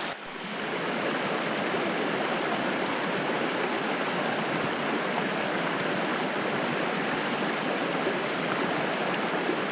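Steady rushing of a trout creek's flowing water, even throughout after a brief dip right at the start.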